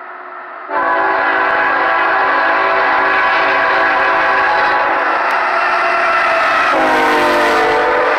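Air horn of a CSX GE ET44AH diesel locomotive blowing a long, steady multi-note chord as the train approaches. It jumps much louder just under a second in and holds. Near the end it drops in pitch as the locomotive passes, followed by the rumble of the passing train.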